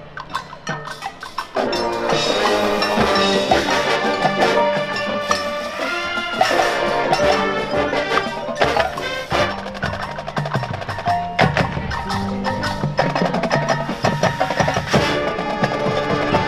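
High school marching band playing its field show. It opens quietly on sharp percussion strikes, then the full band of brass, woodwinds and percussion comes in loudly about one and a half seconds in and plays on.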